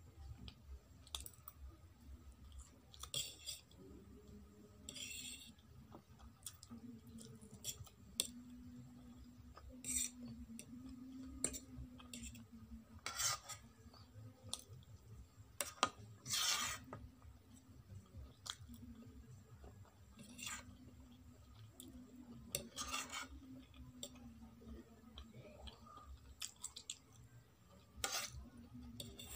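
A metal fork clinking and scraping against a ceramic plate as noodles and carrot pieces are scooped up, in short irregular strokes a few seconds apart, with soft chewing between them.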